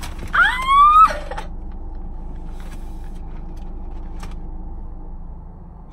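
A woman's high wail of dismay, rising in pitch and lasting about a second, near the start, after she drops a fry. Under it runs the steady low hum of the idling car with its air conditioning on.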